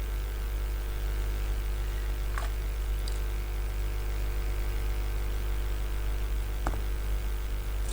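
Steady low electrical hum from the repair bench, with a couple of faint small clicks about two and a half seconds and nearly seven seconds in.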